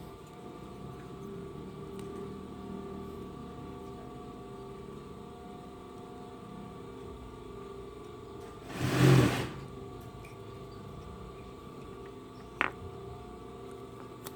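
A steady machine-like hum, with a brief loud rushing noise about nine seconds in and a sharp click near the end.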